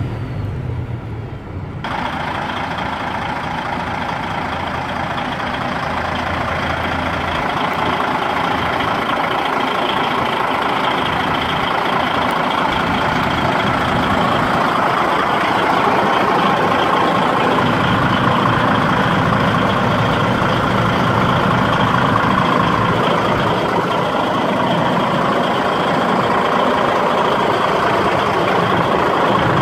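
A DAF XF 95.530 truck's 12.6-litre straight-six diesel engine idling steadily. It becomes louder and brighter about two seconds in, as the sound is heard from out at the front of the truck instead of from the cab.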